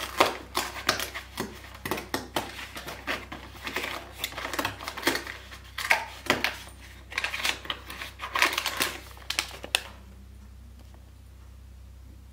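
Cardboard advent-calendar door being prised and torn open, with a dense run of irregular crackles and clicks, and a paper tea sachet rustling as it is drawn out; the handling stops about two seconds before the end.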